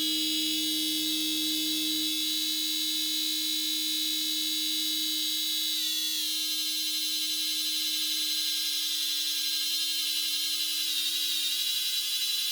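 Elektron Model:Cycles synthesizer holding a steady drone: one buzzy pitched tone with bright high overtones, and fainter partials sweeping up and down through the middle. The lowest parts of the tone slowly fade away over the second half.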